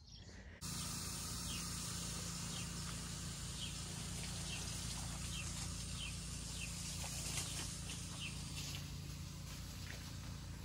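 Outdoor background: a steady low hum and hiss that comes in abruptly about half a second in. Short, faint, high bird chirps are scattered through the middle.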